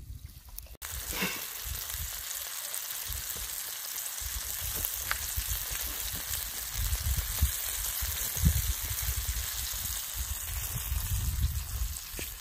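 Battered walleye fillets deep-frying in hot oil in a cast-iron skillet, sizzling steadily. The sizzle starts abruptly about a second in, with a low rumble underneath.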